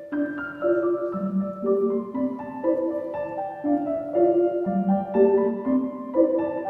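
Ballet music: an instrumental melody of short, evenly paced notes, about two a second.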